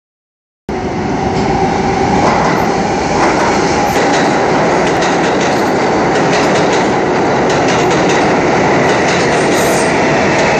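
NYC Subway R142A train moving past a platform in an underground station. It makes a loud, steady rumble of wheels on rail with irregular sharp clicks from the wheels. The sound starts abruptly a little under a second in.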